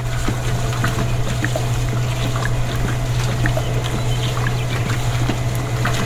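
Wet concrete pouring and trickling off a toy concrete mixer truck's chute onto sand, with small scattered clicks, over a steady low hum.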